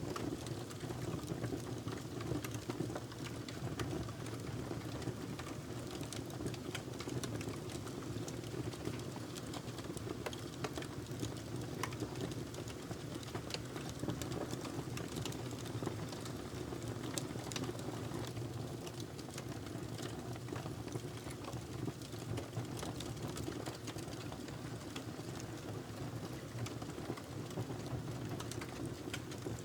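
Wood fire burning in a fireplace: a steady low rumble of flames with frequent sharp crackles and pops throughout.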